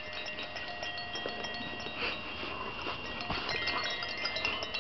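Tiny Love hanging toy chimes tinkling: several bell-like tones at different pitches ring on and overlap as the baby's kicking jostles the bouncing hammock bed, with a few light taps.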